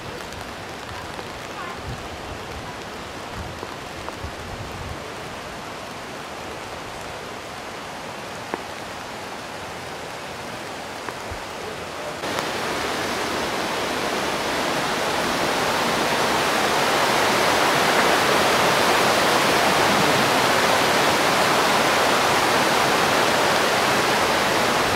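Rain falling steadily on wet cobbled streets; about halfway through the level jumps suddenly and the rushing of a fast mountain stream pouring down a stone-walled channel takes over, growing louder for a few seconds and then holding steady as the loudest sound.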